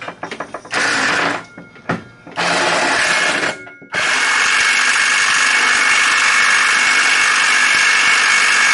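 Handheld cordless power tool driving a bolt home: two short runs, then one long steady run about four seconds in.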